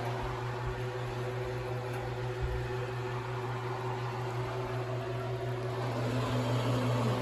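Steady hum of a running kitchen appliance, with a few faint steady tones above it.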